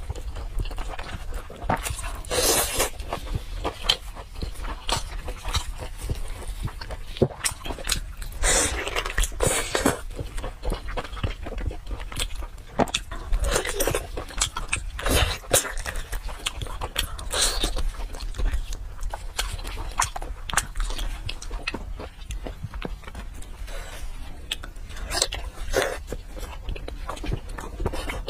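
Close-miked wet chewing and biting of braised pork knuckle, with lip smacks and small mouth clicks throughout and louder stretches of about a second as meat and soft skin are bitten and pulled from the bone.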